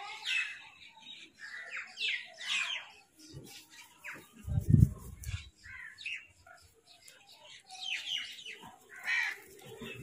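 House crows calling: short falling calls in clusters near the start, around two seconds in and again near the end. About halfway through there is a brief, loud low rumble.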